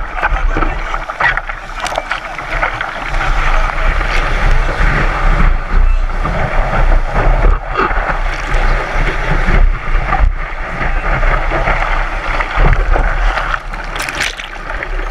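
Surfboard riding broken whitewater: a continuous rush of foam and spray washing over the deck, with paddling splashes near the start and wind buffeting the microphone.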